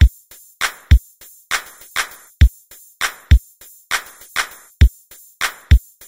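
Electronic intro music with a steady drum-machine beat of kick and snare hits.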